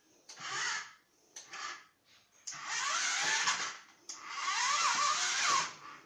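Toy remote-control monster truck's small electric motor and gears whirring in four bursts, a short one, a very brief one, then two longer ones of over a second each, with a whine that wavers up and down. The car is stuck on the sofa cushions, so its wheels spin in place.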